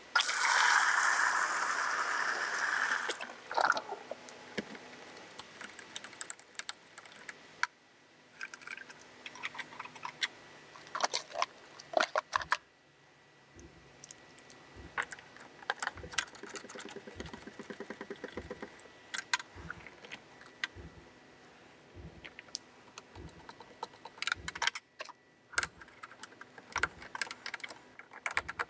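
A loud rushing noise lasts about three seconds at the start. After it come scattered small clicks, taps and knocks of hands handling and fitting plastic parts: a solenoid valve, a union nut, a plug and an aerator going into a flush box.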